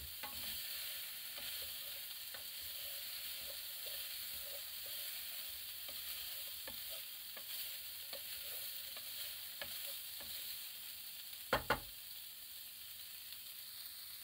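Minced meat, potato and carrot sizzling in oil in a frying pan as they are stirred, with light scraping clicks scattered through and two louder knocks near the end.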